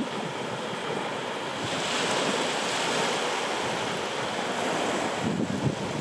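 Sea waves washing up on a beach. The surge swells a couple of seconds in and falls back about five seconds in.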